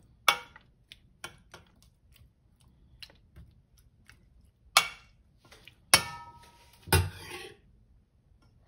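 Metal spoon stirring chunks of marinated pork in a stainless steel bowl: scattered clicks and scrapes of spoon against bowl, with a louder clink that rings briefly about six seconds in and a dull knock about a second later.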